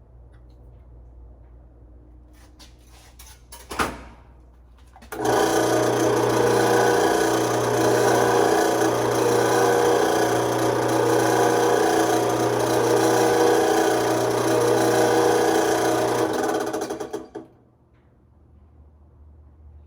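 A knock, then an electric drill press starts about five seconds in and runs steadily for about twelve seconds with a low motor hum under a loud mechanical whir, before shutting off.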